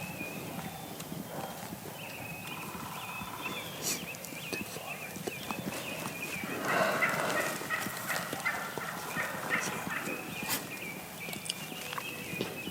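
Wild turkey gobbling: one rough, rattling call about seven seconds in, over a backdrop of high chirping.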